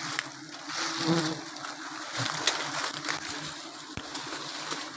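A swarm of giant honey bees (Apis dorsata) buzzing steadily, stirred up and defending their nest. Cloth rustles and scrapes close to the microphone.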